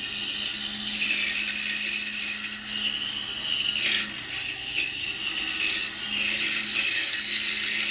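Pegas scroll saw running with its fine blade cutting through a block of wood: a steady motor hum under a high hiss of cutting that dips briefly a few times as the feed changes and stops at the very end as the cut finishes.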